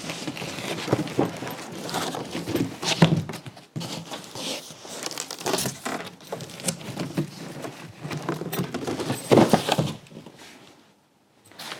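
Packing material being crumpled and shifted about by hand: an irregular run of crinkling, rustling and light knocks that stops for about a second near the end.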